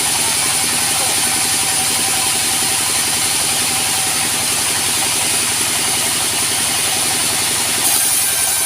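Sawmill's drive engine running steadily, with a steady high hiss over it that grows brighter near the end.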